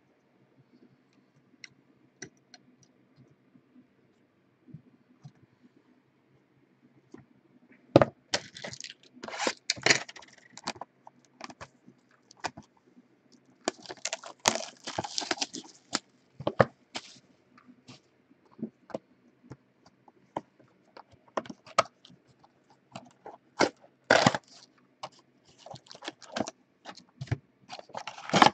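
Plastic shrink wrap crinkling and tearing off a retail trading-card box, then the cardboard box being torn open: irregular crackles, rustles and snaps that start about eight seconds in, with the loudest stretches about ten seconds in, about fifteen seconds in and near the end.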